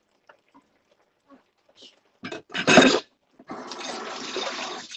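A loud, brief noisy burst about two and a half seconds in, then a kitchen tap running steadily into a stainless steel sink for about a second and a half, stopping near the end.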